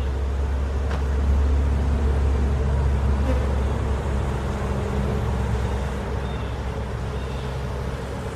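Honeybees buzzing steadily in a droning swarm around an open hive, under a louder steady low rumble, with a few faint ticks.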